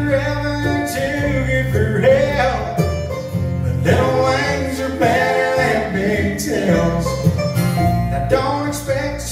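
Bluegrass band playing live: banjo, acoustic guitar, mandolin, fiddle and upright bass.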